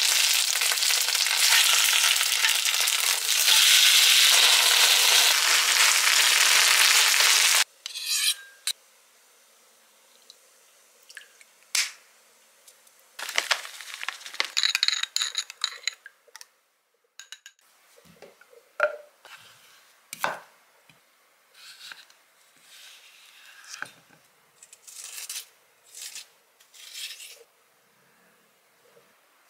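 A pancake sizzling loudly in oil in a cast-iron pan for about eight seconds, cutting off suddenly. After that, only quiet scattered clinks and taps of a spoon against a small glass bowl, with brief light scraping, such as a cucumber being peeled, near the end.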